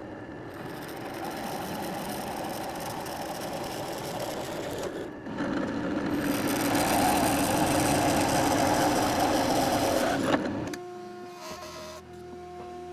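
An electric power tool's motor running in two spells. There is a brief break about five seconds in, and the second spell is louder. It stops sharply near the end, and background music follows.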